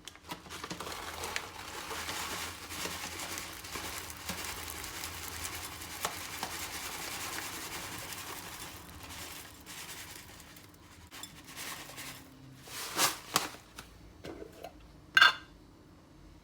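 Tableware being handled: about ten seconds of continuous scraping and rustling with small clicks, then scattered knocks. Two sharp clinks follow near the end, the second louder and ringing like a cup or glass being set down.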